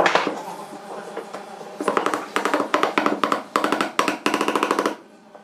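A wooden knock as the post is set into the corner joint, then from about two seconds in a rapid run of light hammer taps on the end grain of the pine post, about five a second, each ringing with a woody tone, driving it down into the joint. The tapping stops briefly near the end.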